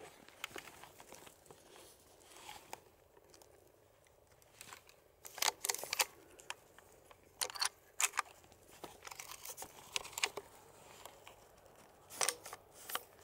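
Dry undergrowth crackling and rustling in irregular bursts as twigs, stems and dead leaves are pushed through and brushed against; the loudest crackles come about halfway through and again near the end.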